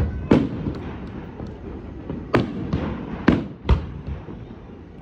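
Aerial fireworks bursting in a quick series of sharp bangs: two right at the start, then four more in close succession from about two and a half seconds in, each with a short echoing tail over a steady low rumble.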